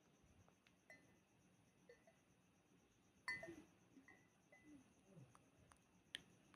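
Glass wine bottles clinking against each other, a few light taps and two sharper clinks. The clink about three seconds in rings briefly, and another comes near the end.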